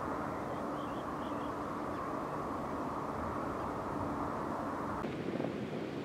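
Steady outdoor background rumble with a faint hum, and a few faint, high bird chirps about a second in. About five seconds in it cuts abruptly to wind and surf noise.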